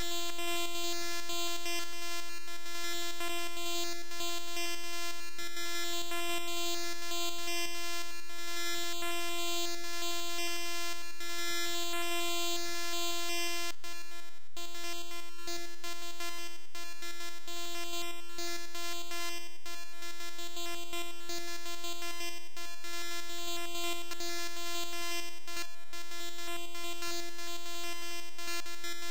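Bytebeat, audio generated directly from a one-line formula in a browser bytebeat player: a steady drone held on one pitch, rich in overtones.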